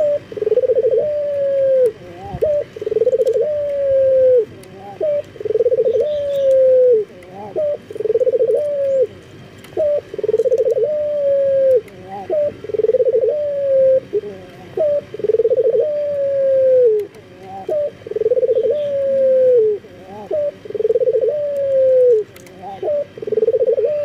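Male Barbary dove (puter) in breeding condition cooing over and over, calling for a female. Each call is a long low coo that drops at its end, followed by a short higher note, repeated about every one and a half seconds.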